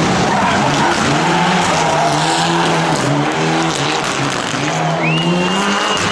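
Mitsubishi rally car engine at full throttle, its pitch climbing and dropping back several times as it shifts up through the gears, over the hiss of sliding tyres. Near the end a high whistle rises and holds for about a second.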